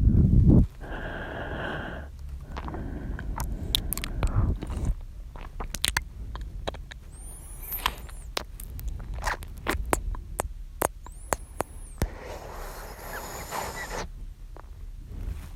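Close-miked mouth sounds from a man: a loud breath that stops just after the start, then breathy exhales and a long run of wet clicks and lip smacks, and another breath near the end.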